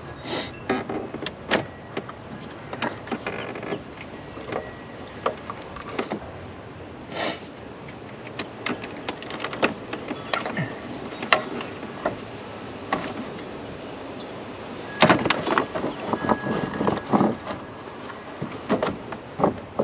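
Scattered clicks, knocks and rattles of plastic and metal as a 1997 Corvette's radiator and cooling-fan assembly are worked loose by hand in the engine bay. There are two short scraping sounds, one at the start and one about seven seconds in, and a busier burst of clatter about fifteen seconds in.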